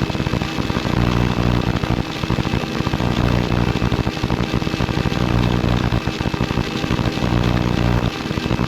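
Helicopter engine and rotor running steadily, a continuous low drone with a fast chopping pulse.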